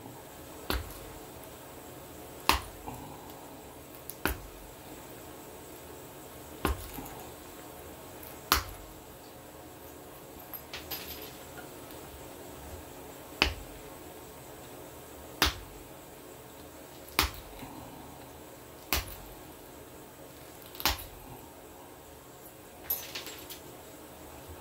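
Knife blade stroked on a leather strop, each stroke ending in a sharp click or snap about every two seconds, with a longer pause near the middle.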